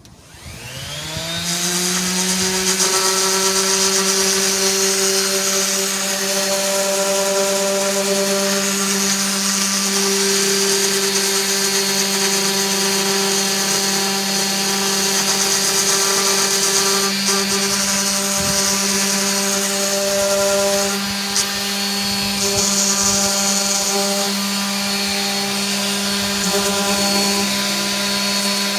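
Electric random orbital sander spinning up in the first second or two, then running at a steady high speed. It is sanding the edges of a wooden table top, with a hiss of sanding over the motor's steady whine.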